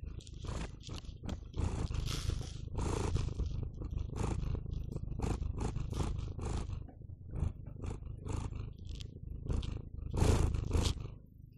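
Domestic cat eating from a hand, chewing and smacking in quick irregular bursts over a steady low rumble.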